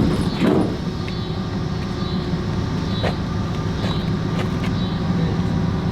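Steady low rumble of a vehicle, with a few light knocks and clicks near the start and about three and four and a half seconds in.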